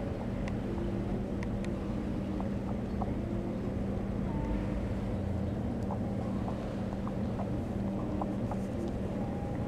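Steady low hum and rumble of room background noise, with a few faint scattered clicks.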